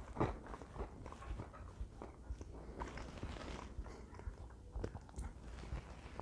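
A person chewing a piece of communion bread close to the microphone: faint, irregular small crunches.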